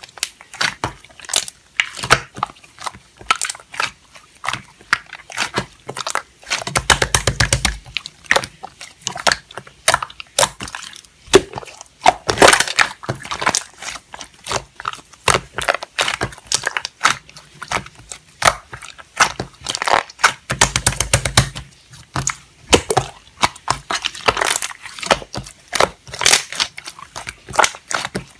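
Slime being squeezed and pressed by hand, giving dense, irregular crackling and popping clicks, with two short low rumbles about seven seconds in and again around twenty seconds.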